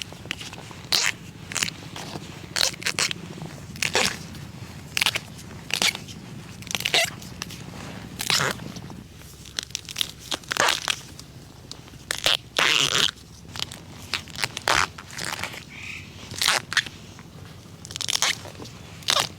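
Irregular crisp snaps and crunches of dry bamboo leaves and stalks, roughly one a second, some much louder than others.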